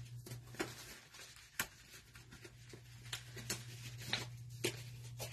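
Faint, irregular small clicks and light taps, about a dozen spread over a few seconds, over a steady low hum.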